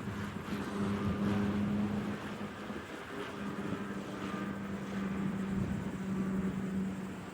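An engine running with a steady low hum, its level wavering slightly.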